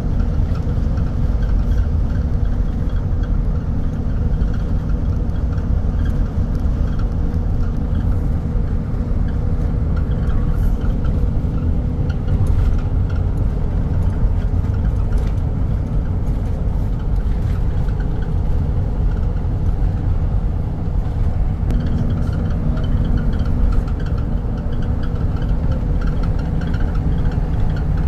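Steady engine and tyre rumble heard from inside a vehicle's cabin while it drives along a paved road.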